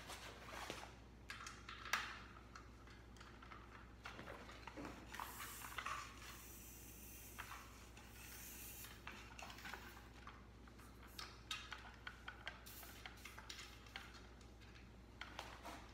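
Bicycle tire and inner tube being worked on the rim by hand: rubber rubbing and rustling against the rim, with scattered light clicks.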